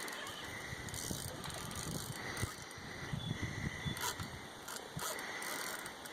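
Fishing rod and reel handling noise while a hooked fish is fought, with scattered irregular clicks and rattles over a steady outdoor background.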